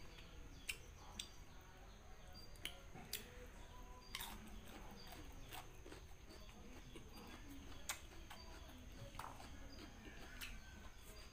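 Quiet eating sounds: a mouth chewing rice eaten by hand, with sharp, irregular lip smacks and clicks every second or so. Faint bird chirps repeat in the background.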